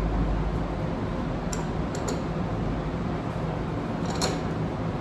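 A few light metallic clinks of steel fixture pieces being set and clamped under an axle trunnion's bearing seal, the loudest about four seconds in, over a steady low hum.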